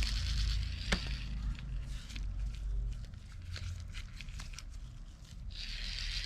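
Fishing reel being handled and tested by hand: a sharp click about a second in and scattered small clicks, then near the end a steady whirring hiss as the reel turns again.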